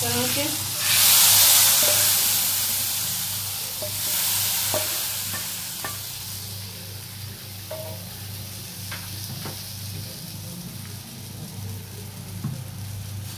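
Hot baghar (tadka) of oil with fried onions, garlic and whole spices poured onto cooked chana dal. It sizzles loudly about a second in and dies away over several seconds. Then comes the scraping of a spoon against the pan and stirring of the dal, with scattered light knocks.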